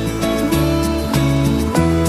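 Background music featuring a plucked acoustic guitar with held notes over a changing bass line.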